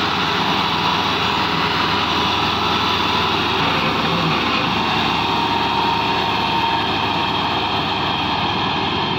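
Massey Ferguson 385 tractor's four-cylinder diesel engine running steadily under heavy load, pulling a loaded grain trolley out of deep mud.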